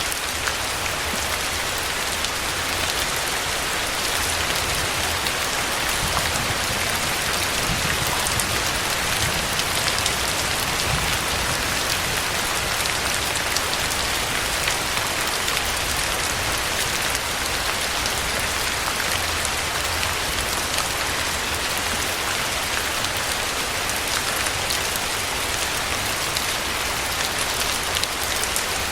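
Steady rain falling: an even, continuous hiss with individual drops standing out as fine ticks.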